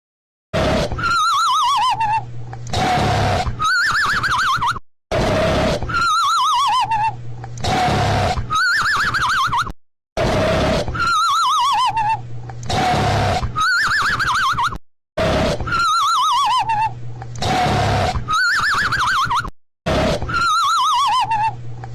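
Cartoon snoring sound effect on a loop: a low rumbly snore with a wobbling tone that slides down, then a wobbling tone that slides back up. It repeats about every five seconds, five times, with a brief gap between snores.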